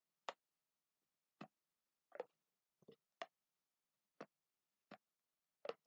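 Glass jar being dipped into a plastic paint palette and pressed rim-down onto paper, again and again: about eight short taps and clicks at uneven spacing.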